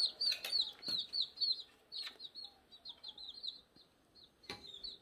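Young chicks peeping: a quick run of short, high cheeps, several a second, thick at first and thinning out after about two seconds, with a few light knocks in between.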